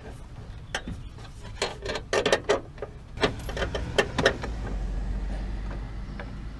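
Irregular metallic clicks and knocks of hand tools and bolts being worked under a pickup's hood. From about four and a half seconds in, a steady low rumble sets in beneath them.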